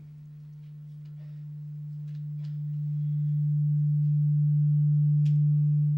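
Low-pitched feedback howl from the church sound system: one steady low tone that swells louder over several seconds, with a faint click near the end. The preacher puts it down to more than one microphone being switched on.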